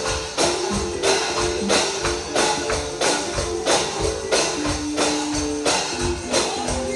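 Instrumental passage of a gospel song: a steady beat of about two strikes a second under held pitched notes, with no singing.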